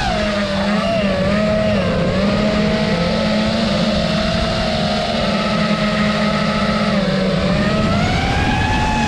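FPV quadcopter's motors whining as it cruises, the pitch dipping and rising with the throttle, over a steady rush of wind and propeller noise.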